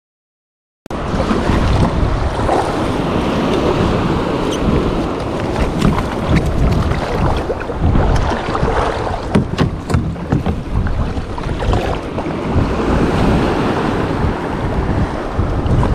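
Strong wind buffeting the microphone over small waves breaking on the beach and water slapping against a kayak's hull. It starts suddenly about a second in and goes on as a loud, rough rush, with scattered sharp splashes.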